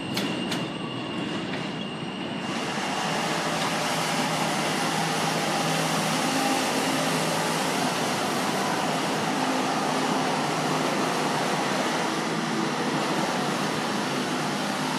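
New York City subway train on an elevated steel line. In the first couple of seconds it gives sharp clicks of wheels over rail joints and a thin high whine. Then a loud steady rumble of wheels and steel structure holds until near the end.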